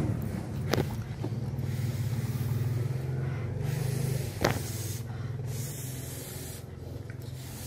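A steady low motor hum that strengthens a little midway and then eases off, with two sharp clicks: one about a second in and one a little after four seconds.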